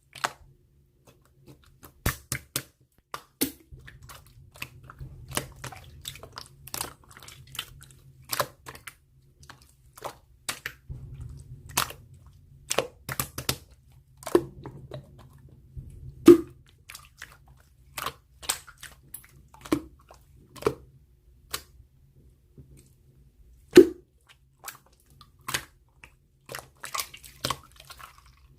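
Irregular close-up clicks, taps and crinkles of small objects being handled, a few strikes louder with a dull knock, around 16 and 24 seconds in.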